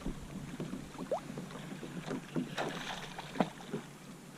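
Scattered light knocks and clicks with faint water noise from a fishing kayak and its gear while a hooked redfish is being fought.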